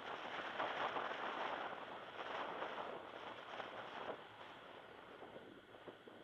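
Wind and road noise of a car driving slowly through town streets, heard from a camera mounted on the car. It is loudest for the first couple of seconds, then eases off.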